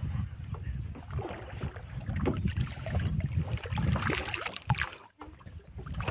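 Wind buffeting the microphone, with water lapping against a small wooden boat's hull and scattered small knocks as a hand fishing line is hauled over the side.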